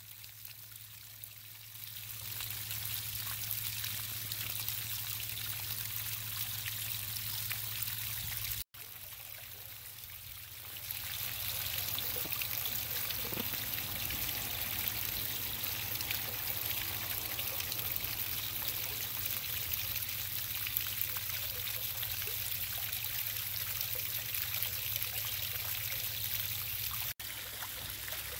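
Water from a medium Aquascape Stacked Slate Urn fountain welling up through the top and spilling down the slate sides, its flow set by a ball valve on an Aquasurge 2000 pump. The splashing steps up about two seconds in and again about eleven seconds in as the flow is opened up, ending with the valve fully open and the water bubbling up high.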